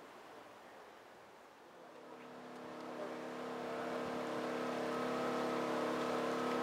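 An engine running at a steady pitch, growing louder from about two seconds in and then holding.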